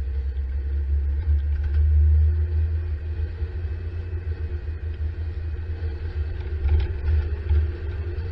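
Vehicle driving along a road, heard from on board: a loud, steady low rumble of engine and road noise.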